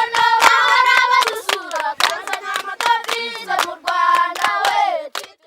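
A group of voices singing a welcome song together over steady hand clapping, cutting off abruptly near the end.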